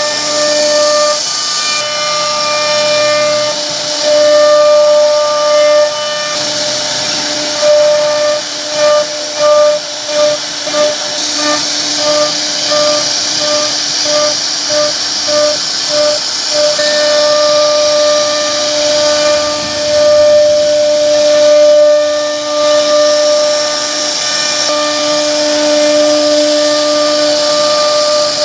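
High-speed CNC router spindle whining steadily while its bit carves grooves in a wooden board, with a hiss of cutting. For a stretch in the middle the whine pulses on and off about twice a second, then runs steady again.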